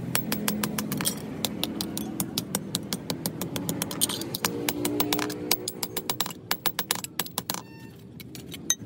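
Small hammer striking a thin steel sheet held on a steel anvil block: a fast run of sharp metallic clinks, several a second, becoming sparser in the last few seconds.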